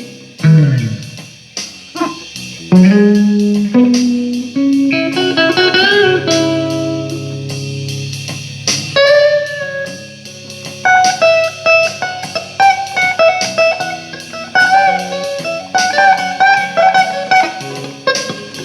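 Amplified guitar playing a blues lead passage: single picked notes with string bends and wavering vibrato, and a falling slide about a second in.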